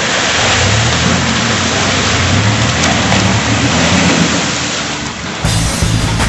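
Rushing, spraying water as a 1997 Dodge Dakota 4x4 pickup drives through a creek, with its 3.9-litre V6 engine running under the splash. The water noise cuts off abruptly about five seconds in.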